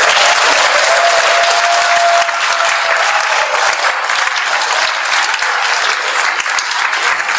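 Audience applause: many people clapping steadily and loudly.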